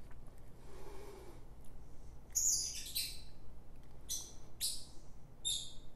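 A small bird chirping, about five short high-pitched calls starting about two seconds in.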